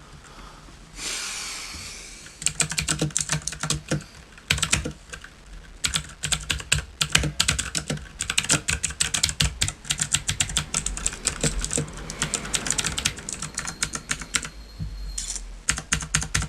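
Fast typing on a VicTop 87-key mechanical keyboard with clicky blue switches: dense runs of sharp key clicks with short pauses. A brief rushing hiss comes about a second in, before the typing starts.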